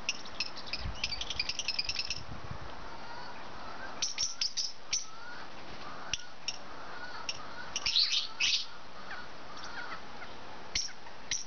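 Young lovebirds chirping: short, high chirps in quick little runs, about a second in, again around four seconds, and loudest near eight seconds, with a few single chirps near the end.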